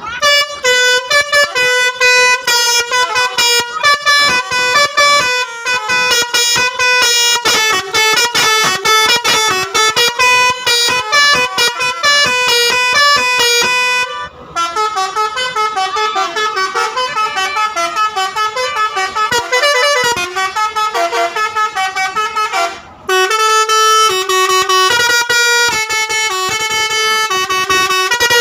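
Basuri telolet musical horn, a multi-tone air horn, playing loud melodies of quickly changing notes, with two brief breaks, about halfway through and about two-thirds of the way in.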